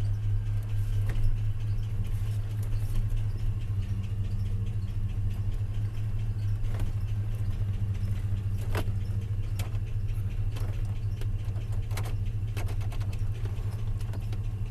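Car engine idling steadily, with a few faint clicks over it.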